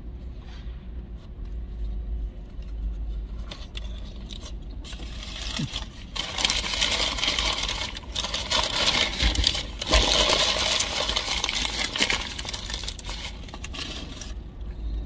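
Rustling, scraping and clinking of things being handled in the back seat of a car, louder and busier from about five seconds in until about twelve, over a low steady rumble.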